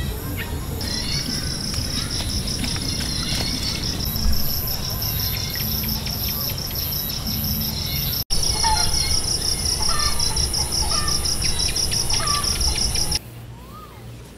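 Dusk insect chorus: crickets or similar insects chirping in steady, rapid high-pitched pulses, with scattered bird calls over it. Near the end it cuts off suddenly to a much quieter woodland ambience.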